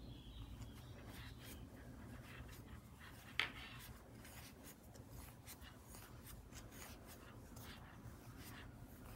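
Faint scratchy rustling of stuffing being poked into a crocheted piece with a wooden chopstick, with one sharp click a little over three seconds in.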